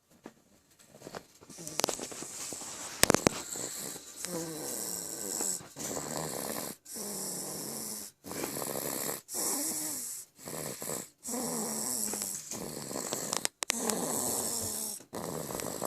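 Snoring: a steady run of rattling, wavering snores about a second long, each after a short pause, beginning after a quiet first second or two. A sharp click sounds about three seconds in.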